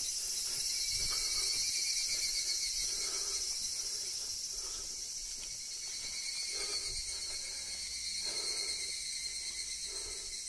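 A steady, shrill chorus of summer insects.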